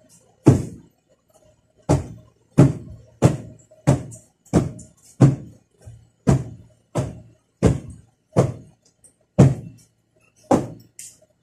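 Dusty furnishings being beaten by hand to knock the dust out: about a dozen dull, hard thuds at an uneven pace, a little under a second apart.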